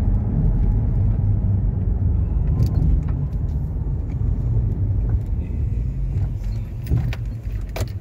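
Steady low rumble of a moving car's engine and tyres heard from inside the cabin, with a few light clicks and rattles.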